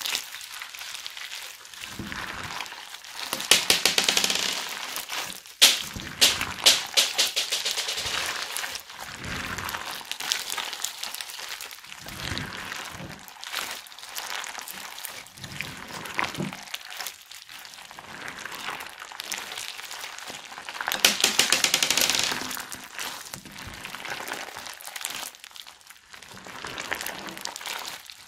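Hands squeezing and kneading crunchy slime packed with cut plastic straw pieces and beads, giving rapid crackling and popping clicks. The crackle swells into louder bursts a few seconds in, again around six seconds, and near twenty-one seconds, with softer crackling between.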